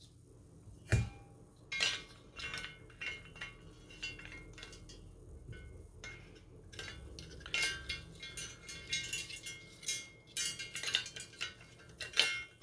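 Hard plastic model-kit parts being handled: a plastic battery box clicking and knocking against a plastic chassis plate. One sharp knock comes about a second in, then scattered clicks and rattles that bunch together in the second half.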